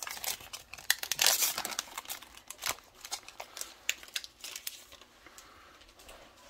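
Foil trading-card pack wrapper crinkling and crackling as it is torn and pulled off the cards. The crackles are loudest in the first two to three seconds, then thin out and fade.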